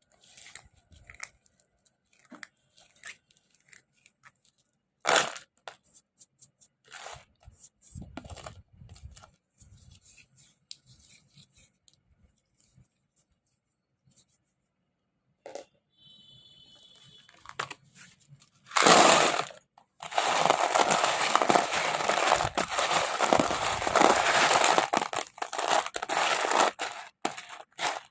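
Naphthalene mothball chunks being handled and crushed: scattered small clicks and rustles, then from about two-thirds in a loud burst followed by continuous dense crunching.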